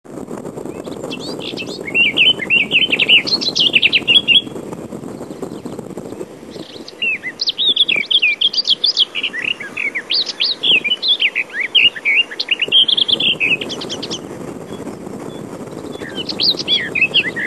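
Small birds chirping: rapid strings of short, high chirps in three bouts with brief lulls between.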